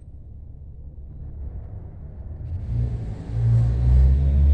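Low engine rumble of a motor vehicle, swelling as it draws close and loudest near the end.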